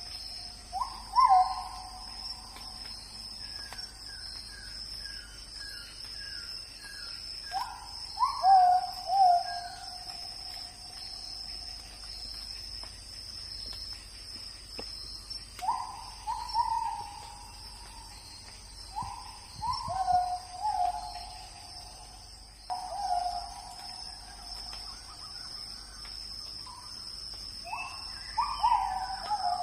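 Forest at night: insects buzzing steadily at a high pitch, with a bird giving clusters of short whistled calls every few seconds, each sweeping up and then holding on a lower note. A quick run of short, higher notes comes a few seconds in.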